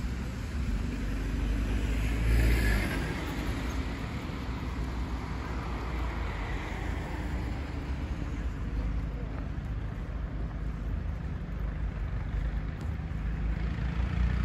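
Road traffic noise, with one vehicle passing close by about two seconds in, its sound swelling and fading.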